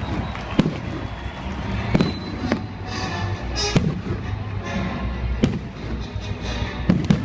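Fireworks show: several sharp bangs of aerial shells bursting, spaced about a second or more apart, with a stretch of crackling just after halfway, over music playing in the background.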